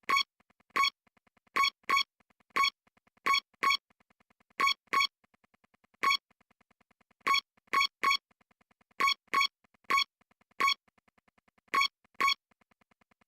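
Electronic music: short, bright synthesizer notes in a bouncy, uneven rhythm over a faint steady ticking.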